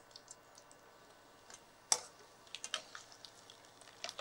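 Small pieces of coconut frying in hot oil in a pan: faint, scattered crackles and pops, with one sharper click about two seconds in and more frequent crackling after it.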